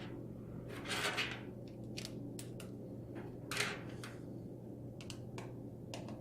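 Light handling noise from small screws and plastic radio-control truck parts: a scatter of soft clicks and taps, with two brief rustles about one and three and a half seconds in, over a steady low hum.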